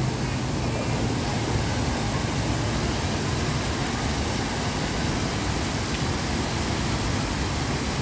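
Artificial waterfall pouring over a rock face into a pond: a steady rush of falling water.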